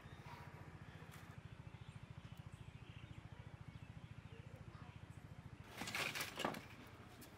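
Faint low steady hum, then a brief scraping rustle about six seconds in as a long wooden stick is pushed into a metal wood-fired stove.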